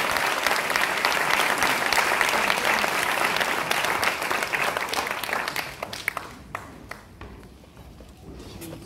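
Audience applause, dense clapping that dies away about six seconds in to a few scattered last claps.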